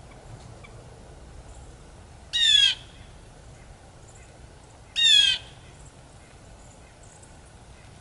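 Blue jay giving two harsh, loud jay calls about two and a half seconds apart, each one short and falling in pitch.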